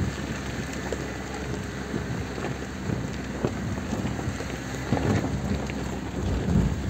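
Inside a Suzuki Grand Vitara driving slowly over a rough, rocky dirt track: tyres crunching and popping on loose stones over the engine's low running, with wind rushing past an open window. Two heavier thumps come near the end as the SUV jolts over bigger rocks.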